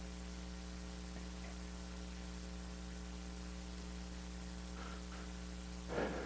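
Steady electrical mains hum with a buzzy stack of overtones; a brief faint sound comes near the end.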